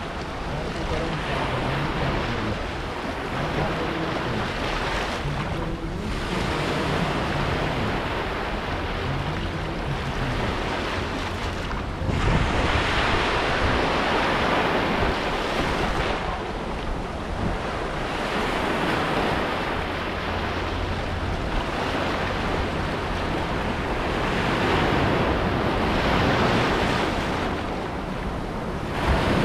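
Small sea waves washing in over sand and rocks, the surf swelling and falling back every few seconds, with a low rumble of wind on the microphone.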